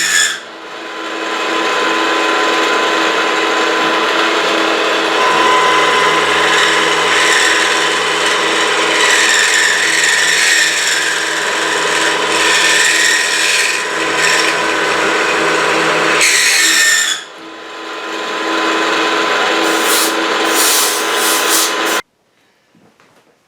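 Milling machine roughing out a pocket with an end mill: a steady spindle hum under loud, harsh cutting noise, which eases for a moment about 17 seconds in and then stops abruptly near the end.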